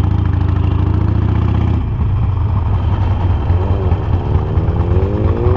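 Harley-Davidson Nightster's 1200 cc V-twin running at low revs through a tight U-turn, then accelerating with a rising engine note over the last couple of seconds.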